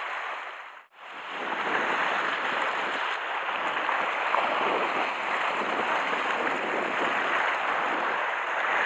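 Steady wash of sea waves against shoreline rocks, dropping out briefly about a second in and returning.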